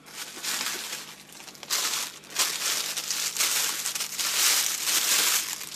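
Packaging being handled and crinkled by hand, as if tools are being unwrapped. The crinkling comes in irregular waves and is loudest in the second half.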